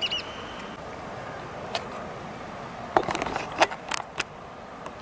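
A short bird chirp at the very start, then scattered small sharp clicks, most of them bunched together about three to four seconds in, over a steady outdoor hiss.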